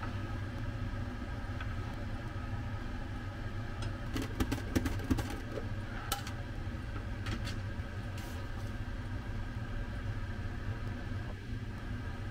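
Vegetable prep on a cutting board: a knife slicing a tomato and a mandoline slicing potatoes, heard as a quick cluster of knocks and clicks about four seconds in, then single clicks a few seconds apart, over a steady low hum.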